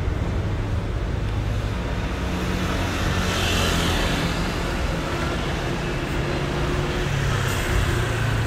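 Street traffic: vehicle engines running with a steady low rumble, and a swell of hiss about three to four seconds in as a vehicle passes.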